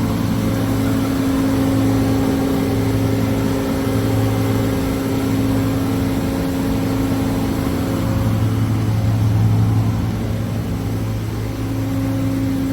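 Amada Vipros 255 CNC turret punch running idle with a steady hum, its lowest tone swelling and easing every few seconds; no punching strokes.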